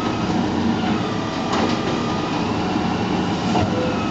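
Automated side-loading garbage truck running, with a steady engine drone and a faint high whine, and a brief knock about a second and a half in.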